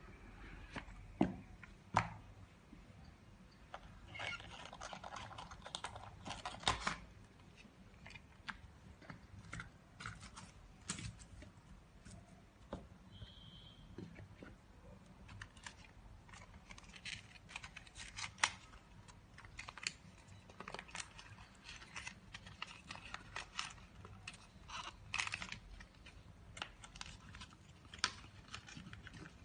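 Close-up handling of small objects: irregular clicks, taps and rustles, as of plastic parts and packaging being handled, with one short high tone about thirteen seconds in.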